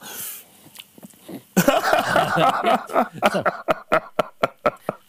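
A man laughing hard. The laughter breaks out about a second and a half in and turns into rapid gasping bursts, several a second.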